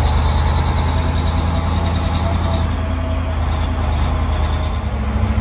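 An old lorry's engine running under way, heard from inside the cab: a steady low drone with a thin high whine over it that fades out about four seconds in.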